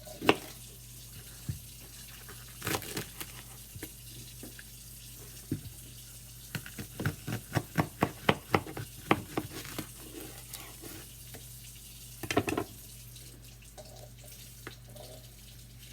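Kitchen tap running into the sink as leeks are rinsed, with a knife chopping on a cutting board: scattered knocks, and a quick run of about a dozen strokes in the middle.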